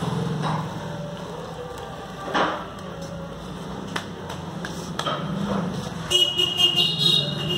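A clay slab roller running with a steady low hum and a few knocks. About six seconds in, a high horn-like beeping tone starts and becomes the loudest sound.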